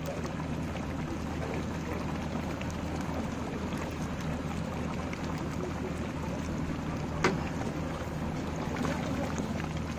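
Mutton curry simmering in an aluminium pot over a wood fire: a steady bubbling hiss over a low hum, with one sharp click about seven seconds in.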